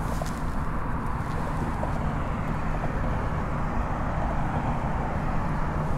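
Steady low drone of road traffic crossing a highway bridge, a constant low hum over an even rumble.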